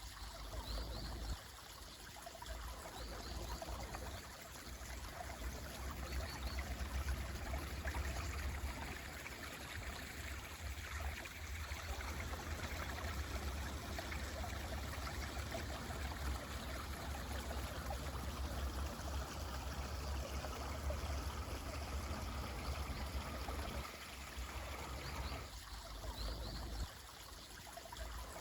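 A mountain stream flowing steadily, a constant rushing of water with a low rumble, with a few faint, brief bird chirps now and then.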